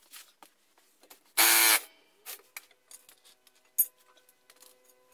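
A short burst from a DeWalt impact wrench, spinning for about half a second with sudden start and stop. Light handling clatter and one sharp click follow a couple of seconds later.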